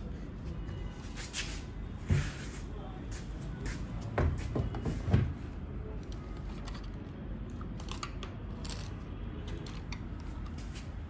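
Handling noises from a plastic toy RC car and its gesture-control bracelet: scattered light clicks and rustles, with a few louder knocks about two seconds in and again between four and five seconds in.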